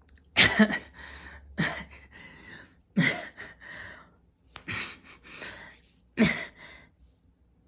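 A person's breathy vocal sounds, short gasping or huffing bursts about five times, with quiet between them.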